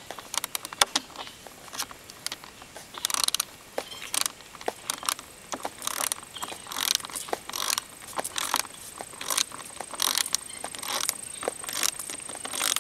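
7/16-inch ratcheting socket wrench clicking in irregular runs with short pauses as a bolt is tightened.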